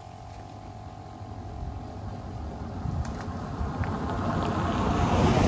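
A pickup truck approaching along the road, its noise growing steadily louder as it nears and loudest at the very end as it comes close.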